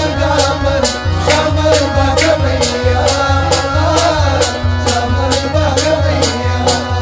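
Live Kashmiri folk music: a tumbaknari (clay goblet drum) keeps a steady beat of about two low strokes a second, with sharp high clicks between them, under a wavering melody line.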